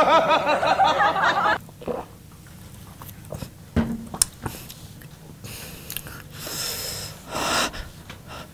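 A person drinking and eating. A short wavering pitched sound opens it, then come small mouth clicks and swallows, and two breathy exhales later on.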